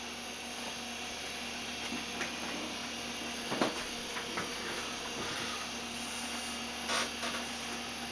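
IBM PS/2 Model 95 running with a steady whir and hum from its fan and drives, with a few soft clicks about a third of the way in and near the end.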